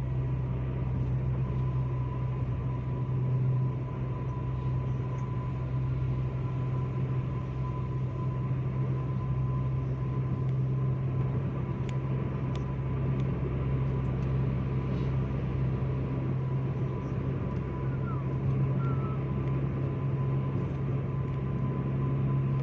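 Steady road and engine noise heard inside a moving car's cabin at highway speed: a constant low hum with tyre noise and a faint steady high whine above it.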